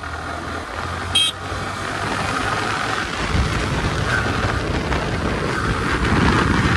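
Yamaha R15 V3's single-cylinder engine running steadily under way in fourth gear, heard from the rider's seat, with wind rushing over the microphone that grows louder from about three seconds in. A brief, sharp high-pitched blip about a second in.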